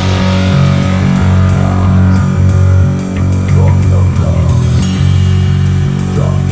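Nu metal band playing an instrumental passage: electric guitars and bass holding heavy low chords over a drum kit with steady cymbal hits, and no vocals.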